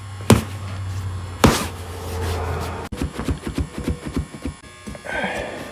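A small power tool motor running with a steady hum, with a few sharp knocks over it, as screws are worked out to remove the armrests of a boat captain's chair. About halfway through the hum stops and a quick run of clicks and knocks follows.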